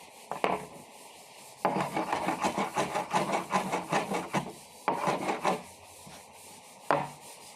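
Wood being abraded by hand with rapid back-and-forth scraping strokes, several a second. A single stroke comes just under half a second in, a long run of strokes follows from about a second and a half to four and a half seconds, a shorter run comes around five seconds, and a last single stroke near seven seconds.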